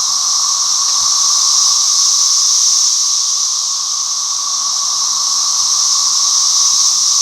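Loud, steady chorus of periodical cicadas: a high, hissing buzz over a lower, constant whine, running without a break.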